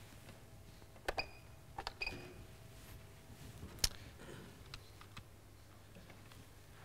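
A handful of faint, scattered clicks and taps on a laptop keyboard, the sharpest about four seconds in, over a low steady hum.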